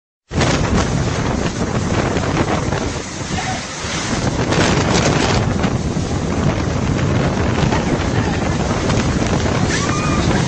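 Typhoon-force wind blowing with wind-driven rain, heavy wind noise buffeting the microphone as a loud, unbroken rush. The sound drops out for a split second right at the start.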